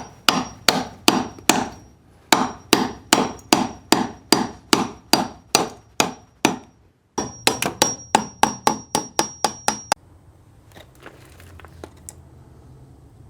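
Hammer driving a chisel into an old seasoned hardwood bearer: three runs of steady blows, about three a second, each with a short metallic ring. The last run is a little quicker.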